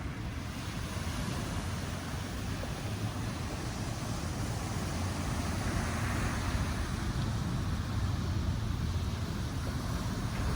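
Steady low rumble of heavy ocean surf, with wind on the microphone, slowly growing louder.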